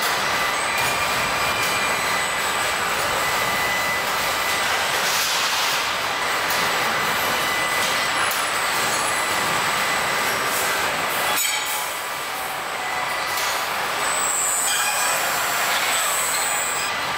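Steady assembly-plant floor noise: an even machinery and ventilation hiss with a few thin, steady high-pitched whines, dipping briefly about two-thirds of the way through.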